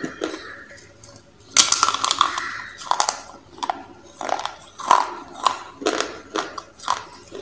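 Dry baked clay crunching and crackling close to the microphone. A dense crunch comes about one and a half seconds in, then single sharp crunches follow about every half second.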